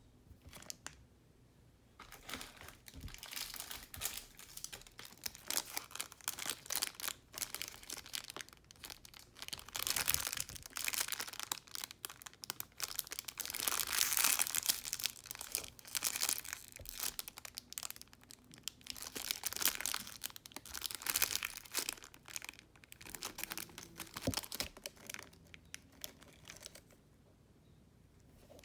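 Plastic wrapping crinkling and rustling as it is handled, in dense irregular crackles. It starts about two seconds in and stops shortly before the end.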